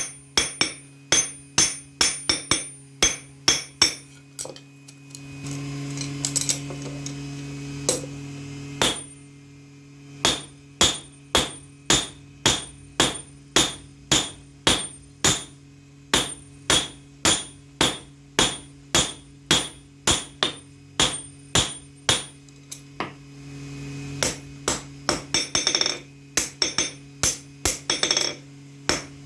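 Hammer blows on metal at a steady rhythm of about two a second, typical of hand-forging a knife blade on an anvil. The blows pause for a few seconds about five seconds in, then resume. A steady low hum runs beneath them.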